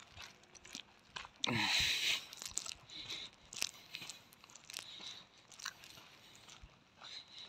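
Footsteps crunching on a dry, gritty dirt path, an uneven step every half second or so. A louder scraping rustle comes about one and a half seconds in.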